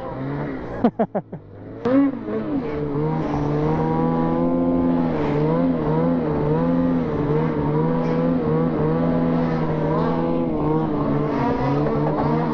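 Snowmobile engine running under throttle, its revs rising and falling unevenly. About a second in the sound cuts in and out in a few sharp pulses, then settles back into a steady run.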